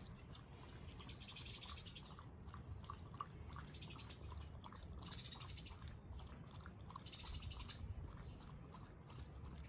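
Shiba Inu lapping water, a steady run of soft, quick wet laps.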